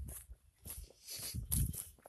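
Footsteps walking on dry, matted grass and leaves, irregular crunching and rustling steps with a heavier bump about one and a half seconds in.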